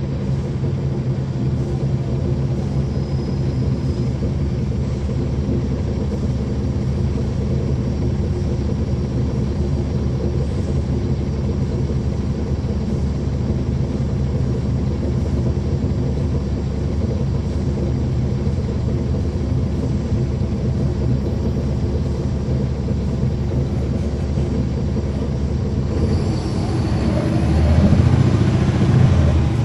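Caterpillar C13 diesel engine of a NABI 40-SFW transit bus running steadily, heard from inside the bus. Near the end the sound grows louder and rougher, with its pitch shifting.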